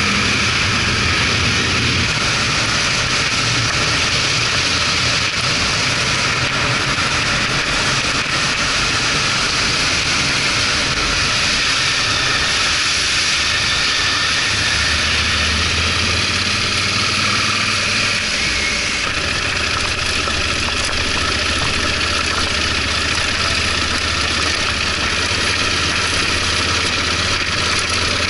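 Yamaha XT1200Z Super Ténéré's parallel-twin engine running under way, with steady wind and road noise over the on-board microphone. The tone shifts slightly about two-thirds of the way through.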